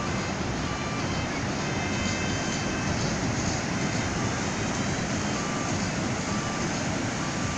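Steady rushing noise of ocean surf breaking along a beach.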